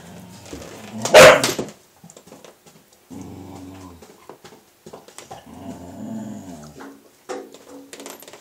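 A dog barks once, loudly, about a second in, then growls in several long, low stretches.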